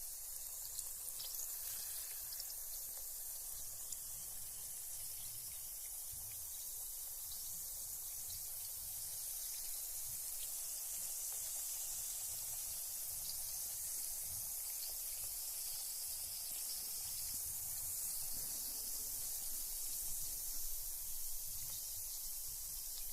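Carbonated bath bomb fizzing in bath water: a steady high hiss of escaping bubbles, with scattered tiny pops.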